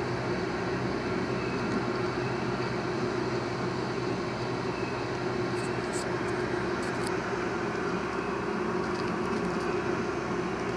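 A steady, even mechanical hum, with a few faint light clicks about six to seven seconds in.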